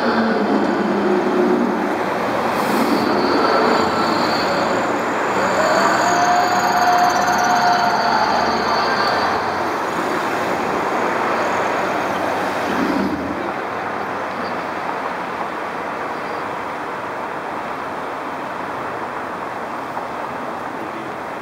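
Steady city traffic noise, with a high whine that rises and then holds for about two seconds, around six seconds in.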